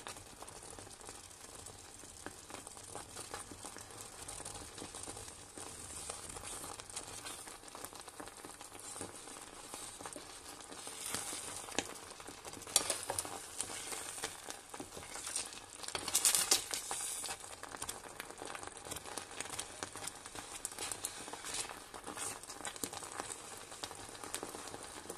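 Creamed spinach bubbling and sizzling in a pot, a steady crackle of small pops. It grows louder twice, about halfway through and again a few seconds later, as a spoon stirs through it.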